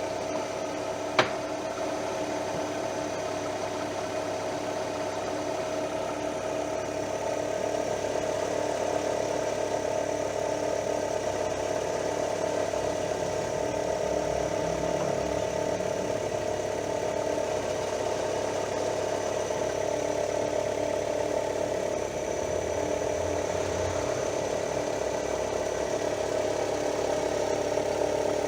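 Fiat Palio engine idling with a rattling knock from the clutch area, a single sharp click about a second in. The knock comes from loose damper springs in the clutch disc, and it stops while the clutch pedal is held down.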